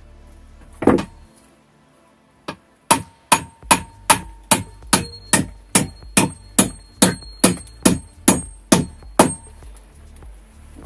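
Hammer driving nails into a wooden bench frame: a single blow, then a steady run of about sixteen blows at roughly two and a half a second, with a ringing tone under the strikes.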